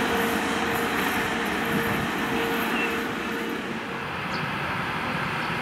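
VL80-series electric locomotive running past on the rails: a steady rumble with a steady hum over it. A little past halfway the hum stops and the sound shifts to another VL80 hauling freight wagons.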